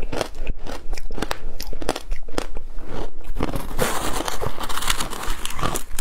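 Close-up crunching of shaved ice being chewed, a quick run of crisp crackles. From about four seconds in comes a denser, grating crunch as a metal spoon digs into the frozen shaved ice in the tub.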